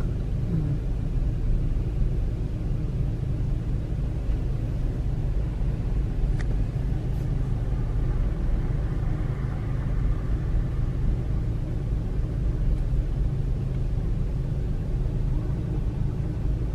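Steady low rumble of a car's engine running at idle, heard from inside the cabin, with a faint click about six seconds in.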